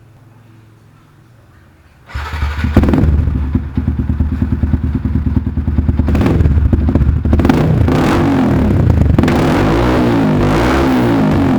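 Yamaha Jupiter MX-King 150's single-cylinder four-stroke engine, fitted with an aftermarket R9 Assen racing exhaust, starting suddenly about two seconds in. It is blipped in quick revs for several seconds, then settles to a steady, loud run near the end.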